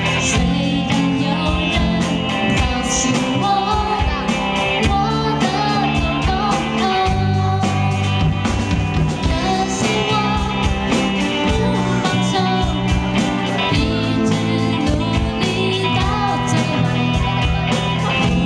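Live rock band playing amplified: a woman singing lead over acoustic guitar, electric guitar, bass guitar and a drum kit with a steady beat.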